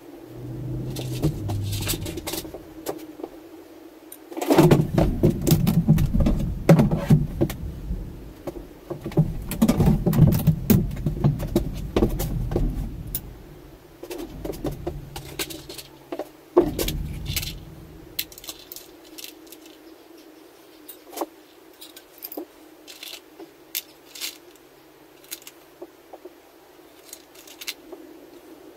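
Small metal carburettor parts clinking and rattling as they are handled and fitted at the bench, in quick scattered clicks. A heavy low rumble runs under the clinks from about 4 s to 13 s and again briefly around 17 s.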